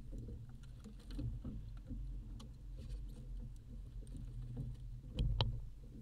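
Small waves lapping and slapping against a fishing boat's hull, with scattered light clicks and knocks on board. A louder knock comes about five seconds in.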